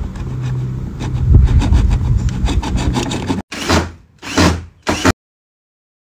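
Hacksaw cutting a clear plastic sheet with quick back-and-forth strokes. About three and a half seconds in, a cordless drill runs in three short bursts against the plastic sheet on a wooden frame.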